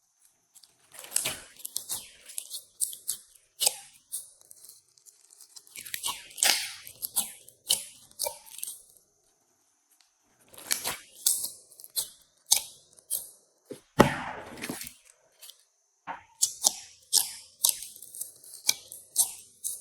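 Hands kneading and stretching glossy slime: sticky, wet crackles and popping clicks come in quick bursts, broken by a couple of short pauses.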